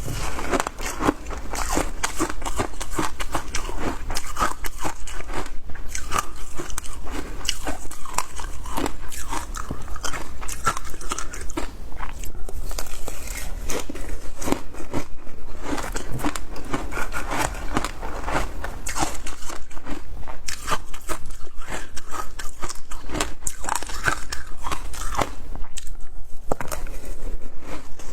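A person biting and chewing frozen matcha ice, a steady run of crisp crunches.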